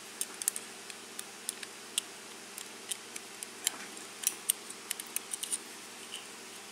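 Light, irregular metallic clicks and taps of a pin-tumbler lock cylinder being worked apart by hand, its small parts and tools knocking together, coming faster in the second half.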